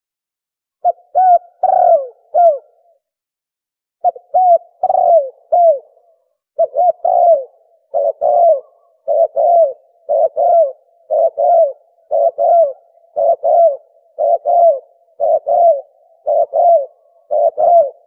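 Spotted dove cooing: phrases of several low coos, each note rising then falling in pitch. After the first phrase there is a pause of about a second, then phrases repeat roughly once a second.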